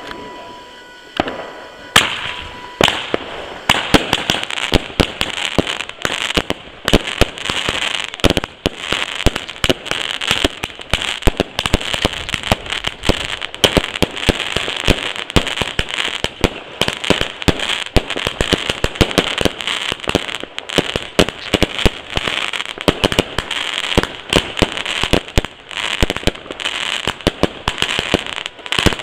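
New Year's fireworks: aerial shells and firecrackers going off in a dense, continuous run of bangs and crackles. A few separate cracks come first, and from about three seconds in the bangs follow each other too fast to count. A steady high tone sounds over the first couple of seconds.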